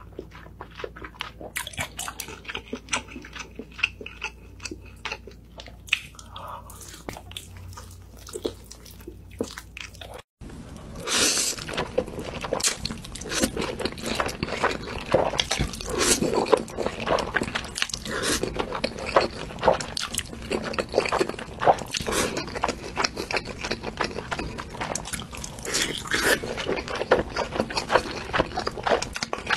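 Close-miked eating sounds: wet chewing and lip smacking on sauce-glazed meat, then, after a brief cut about ten seconds in, louder, denser slurping and chewing of dark sauced noodles.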